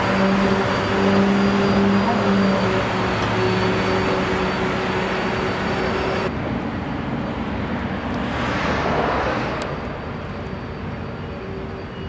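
Steady road-traffic noise with the low hum of an engine. About eight to nine seconds in, the noise swells and fades as a vehicle passes.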